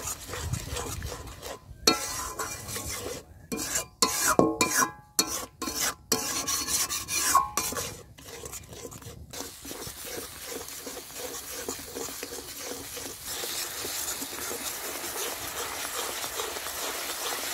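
Flat metal spatula stirring and scraping a wet spice paste around a metal kadai while the paste fries down with a little water, sizzling. The scraping strokes are choppy and broken by short abrupt gaps in the first half, then give way to a steady sizzle.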